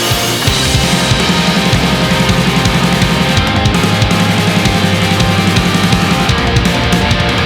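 Instrumental passage of fast, metal-inflected melodic punk rock: distorted electric guitars riffing over bass and quick, driving drums, with no vocals.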